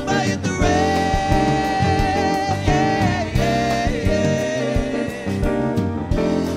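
Live band playing: voices singing over electric guitar, bass, keyboard and drum kit. A long held note begins about half a second in and steps down to lower notes near the middle.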